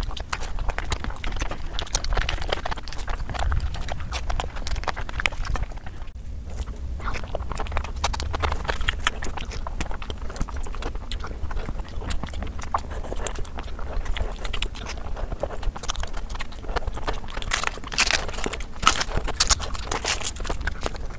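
Close-miked eating sounds: chewing and lip-smacking on big hand-fed mouthfuls of chicken biryani and curry, a steady run of small clicks and smacks that grows thicker and louder near the end.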